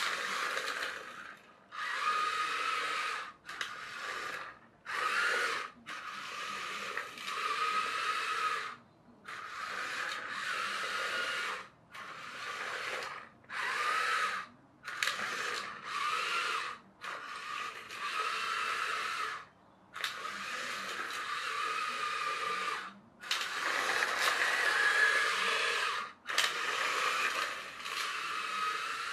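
Kid Galaxy toy fire truck's small brushed electric motor and original plastic gearbox whining as it drives, in about a dozen bursts with short stops between them. The pitch wavers up and down with the speed.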